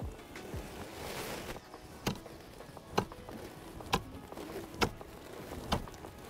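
Steel ice spud jabbed down onto lake ice under snow, giving sharp strikes about once a second while walking, testing how thick the ice is.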